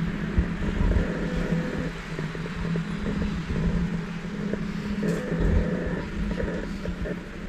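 Removu R1 gimbal's motors humming steadily as they stabilise the camera, recorded by the GoPro in its hard case, with irregular low rumbles and thumps underneath.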